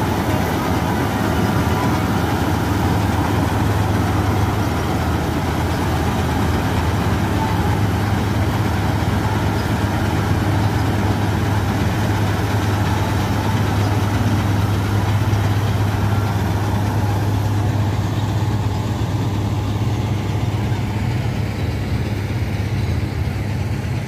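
Combine harvester's diesel engine running steadily at a constant pitch, a strong low hum under a broad mechanical noise.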